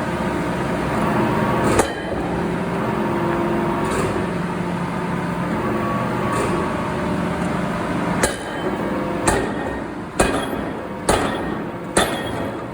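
Forging shop machinery running with a steady hum. A single metal strike comes about two seconds in, then from about eight seconds in hammer blows on metal fall about once a second.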